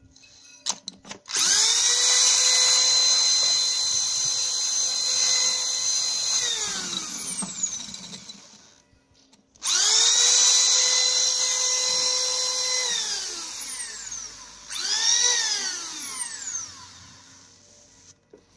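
Corded electric drill spinning a nylon bottle brush inside a glass bottle, its whine jumping up to speed on the trigger and sliding down as it is let go. It runs three times: two long runs of about six and four seconds, then a short burst. A few light knocks come just before the first run.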